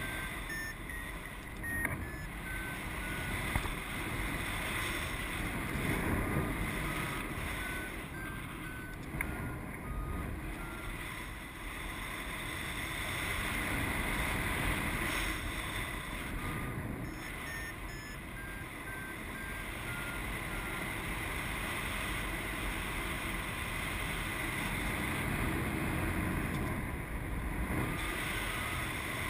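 Wind rushing over the microphone in flight under a paraglider, with a flight variometer beeping in several runs of short beeps whose pitch steps up and down, the signal that the glider is climbing in lift.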